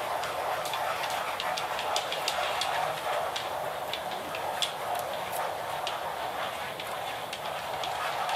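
Many pens scratching on paper at once as a roomful of people draw circles: a steady scratchy hiss with scattered light ticks.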